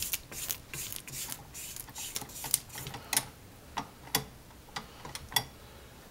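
A spatula scraping and tapping against a stand mixer's stainless steel bowl and wire whisk as frosting is pushed down from the sides. It gives scattered light clicks at an uneven pace, a few of them sharper.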